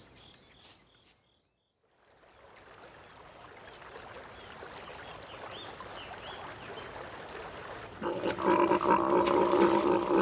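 A Père David's deer stag bellowing: a loud, drawn-out, rough call starting about eight seconds in and lasting some three seconds. Before it, faint small chirps over a quiet marsh background.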